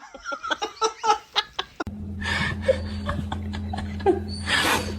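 Short bursts of a person laughing. About two seconds in, a steady low hum starts suddenly, with a few breathy bursts over it.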